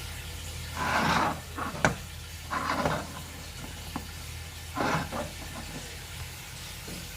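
Stir-frying in a pan: three short scraping strokes of a spatula through sizzling food, with a sharp click about two seconds in, over a steady low hum.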